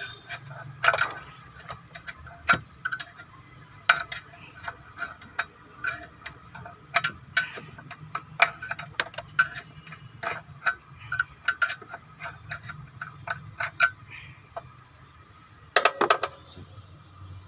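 Irregular sharp clicks and light metallic taps, a few each second, from hands-on work on a choked urea injector. A steady low hum runs underneath.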